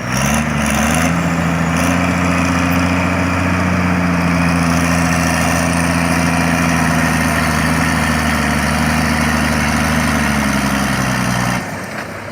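Diesel engine of a Fiat-Allis FD9 crawler tractor running steadily and sounding healthy, its pitch rising briefly just after the start. Near the end it is throttled back and the sound drops.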